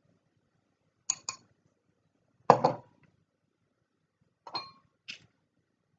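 Kitchen utensils clinking against dishes: two quick clinks about a second in, a louder clatter about two and a half seconds in, and two more near the end.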